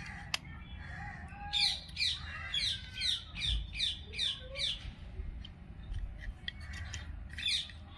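A bird chirping: a quick run of about nine short chirps, each falling in pitch, at about two a second, then a few more near the end. A single sharp click near the start.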